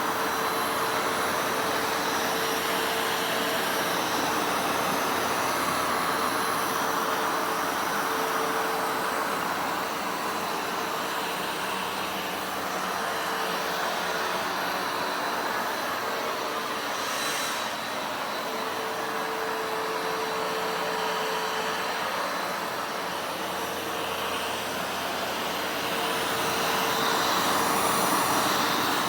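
Vacuum cleaner running steadily: a constant rush of air with a steady motor hum, getting a little louder near the end.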